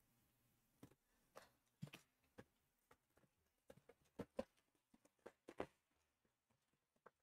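Faint, scattered taps and clicks of hands handling and opening a trading-card hobby box, a little busier between about four and six seconds in.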